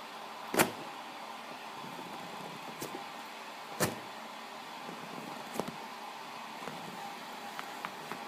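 Two sharp taps about three seconds apart, with a few fainter clicks between and after them, over a steady hiss.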